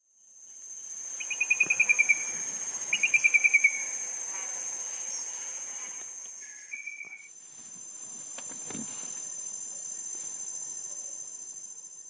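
Steady high-pitched insect trilling, with two loud, quick descending trills from a bird in the first four seconds and a short whistled note near the middle. There is a soft low thud about three quarters of the way through.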